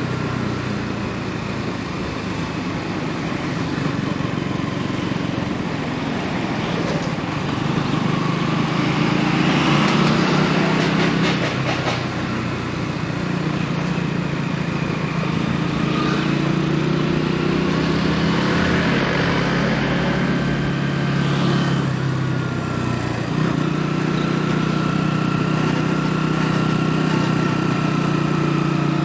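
KTM Duke 200 BS6's single-cylinder engine running under way, its pitch rising and falling with the throttle, over road and wind noise. A thin high whine joins in during the second half.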